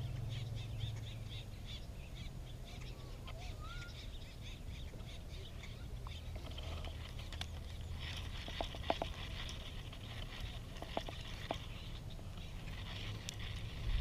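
Dusk pond-side ambience: a steady, fast-pulsing chorus of small calling animals with a few short bird chirps, over a low steady rumble. A handful of sharp clicks comes about two thirds of the way in.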